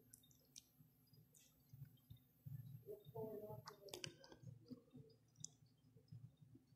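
Faint clicks and scrapes of cardboard packaging being handled as a chocolate box is slid out of its paper sleeve, with a sharper click about four seconds in.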